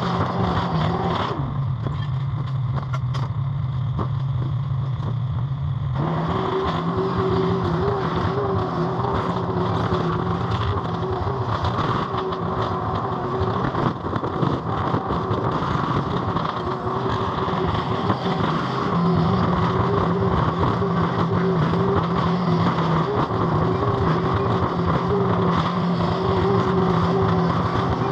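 Mini skid steer's engine running hard under load, dropping to a lower note for a few seconds near the start and then coming back up. Scattered knocks and crunches of sheet metal as the big coolers are bashed and crumpled.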